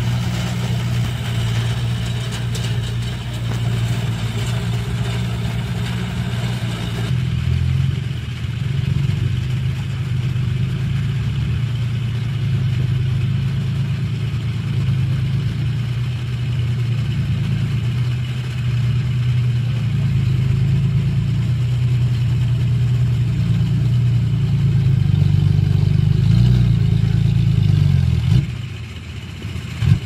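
Diesel engines of a dump truck and a small crawler bulldozer running under load, a steady low engine drone. It swells a little, then drops away abruptly near the end.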